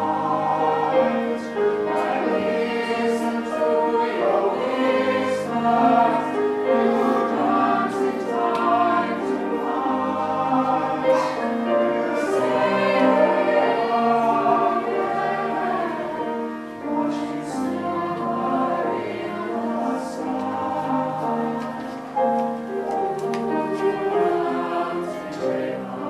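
A mixed youth choir singing in parts, moving through held chords.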